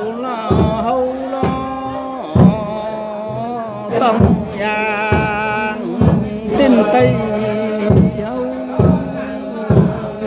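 Music: a sung melody with long held, sliding notes over drum thumps about once a second.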